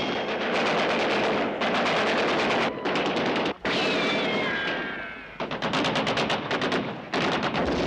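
Automatic weapons firing in long rapid bursts, a continuous rattle of shots with a brief break about halfway through, then a fast run of separate sharp shots near the end. A high wail falls in pitch about four seconds in.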